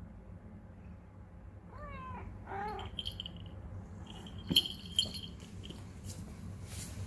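A domestic cat meowing twice in quick succession about two seconds in, short rising-and-falling calls, followed a couple of seconds later by two sharp clicks.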